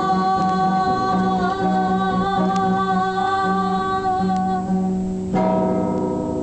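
The end of a homemade song: a long held sung note over instrumental accompaniment, fading out about four and a half seconds in. A final chord follows and rings out.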